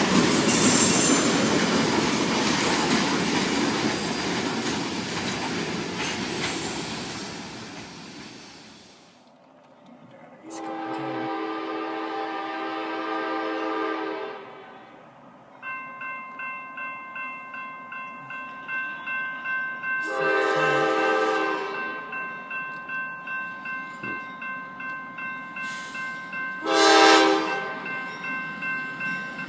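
A train rolls past and fades away over the first eight seconds or so. Then a freight locomotive's horn sounds a long blast, a second long blast and a short one, while grade-crossing warning bells ring at about two strikes a second.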